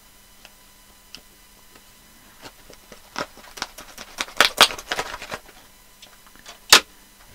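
A small cardboard retail box being cut and pulled open with a small folding blade: a run of scratchy, clicking cuts starting about three seconds in, then one sharp snap near the end as the packaging comes free.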